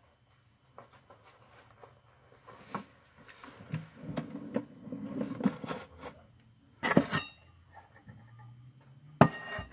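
Scattered clicks and knocks with a low, muffled rumble in the middle, and two sharp, louder clatters about seven seconds in and just after nine.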